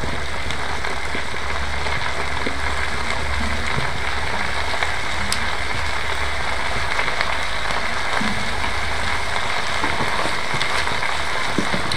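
Onions and mushrooms frying in oil in a steel wok, with a steady sizzle.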